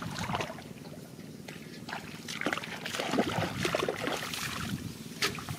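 Shallow muddy water in a flooded rice-field ditch sloshing and splashing unevenly, busiest in the middle, with one sharp splash near the end.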